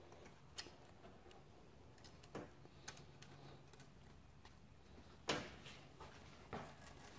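A few faint, scattered clicks and taps as the servo cover and its retaining ring are handled against the 4L60E transmission case, the loudest about five seconds in.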